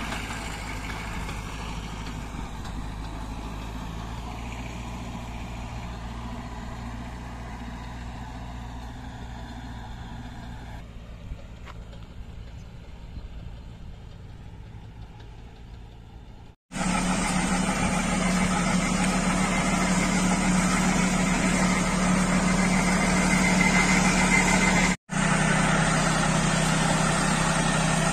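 Tractor engine running with a PTO-driven orchard duster's blower working, slowly fading as it moves away. About 17 seconds in it cuts to a louder, closer tractor and duster running steadily with a droning hum, broken by a brief dropout near 25 seconds.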